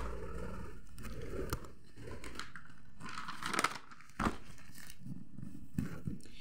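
Rustling handling noise with a few sharp clicks and knocks, made while writing out a sentence by hand.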